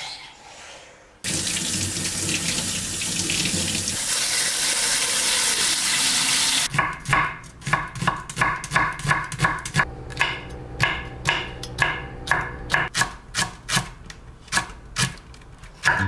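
Water running steadily from a tap for about five seconds, then a chef's knife chopping vegetables on a wooden cutting board in a steady run of sharp chops, two to three a second.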